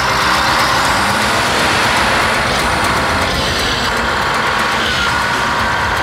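Heavy earth-moving machine's diesel engine running hard, with a high whine that drifts slowly in pitch.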